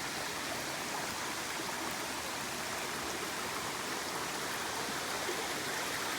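Stream water rushing, a steady, even rush with no breaks.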